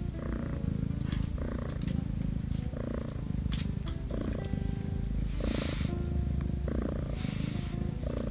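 A black Korean shorthair kitten purring steadily while its chin is stroked. The purr rises and falls with each breath, about one every second and a half, and goes on without a break, a sign of a content cat.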